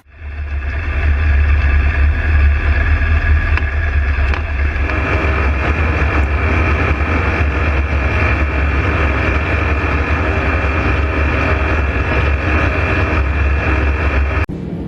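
Steady engine drone with a heavy low rumble and a whine above it that strengthens about five seconds in, cutting off suddenly near the end.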